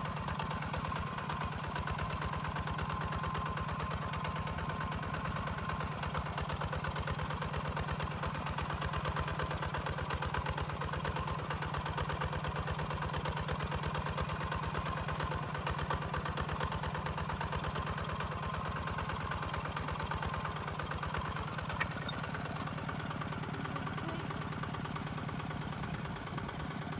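Two-wheel walking tractor's single-cylinder diesel engine running steadily under load as it pulls a plough through dry soil, with a fast, even chugging.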